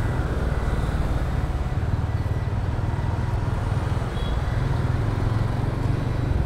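Steady low rumble of a motor vehicle on the move: engine and road noise heard from on board, with no clear change or separate event.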